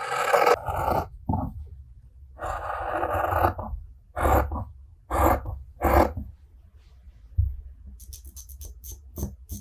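Large brass-handled tailor's shears cutting through fabric in several strokes, each a loud noisy snip. Near the end, light quick scratching of a marker drawn along a ruler on cloth.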